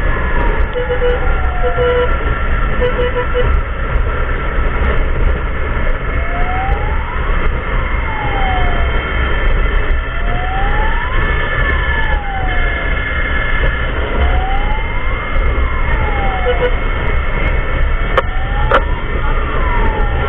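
Emergency vehicle siren wailing in slow rises and falls, about one cycle every four seconds, over a loud steady low rumble of engine and wind.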